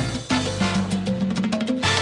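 Latin tropical dance music with drums and percussion over a steady bass line, played loud through a sonidero's sound system.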